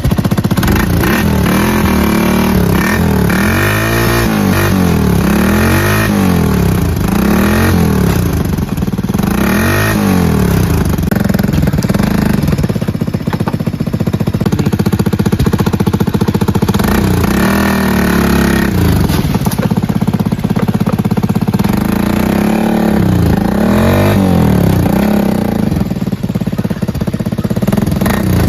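Small motorcycle engine running under way, its pitch repeatedly rising and falling as the throttle opens and closes.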